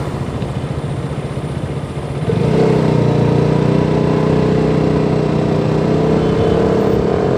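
Motorcycle engine running, with a rough drone that turns into a louder, steadier drone about two seconds in.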